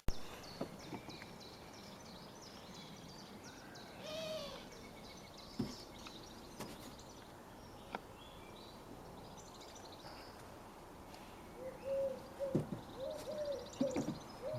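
Quiet outdoor birdsong with scattered high chirps, a few faint clicks, and a pigeon cooing in a short repeated phrase near the end.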